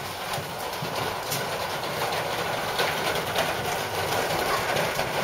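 Steady hubbub of many people talking at once, with a rumbling background noise and scattered small clicks.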